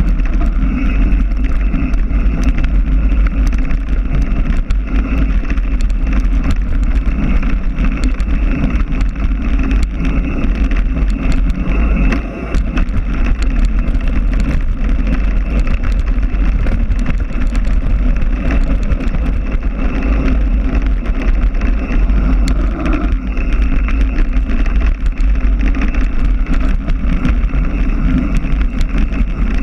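Heavy wind buffeting on the microphone of a camera carried by a rider in motion, with rumble and constant small rattles from travel over rough ground; it eases briefly about twelve seconds in.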